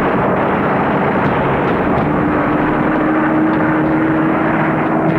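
Propeller aircraft engines droning steadily, the sound of piston-engined bombers in flight, with a steady low tone joining about two seconds in.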